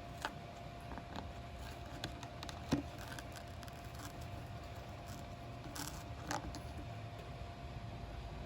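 Scattered taps, clicks and scrapes from an African grey parrot pecking at and tearing cardboard on a table, with a faint steady hum underneath.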